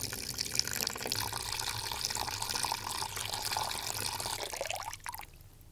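Water gushing from a hose into a glass tank, splashing and churning up bubbles as the tank fills. The flow stops suddenly about five seconds in.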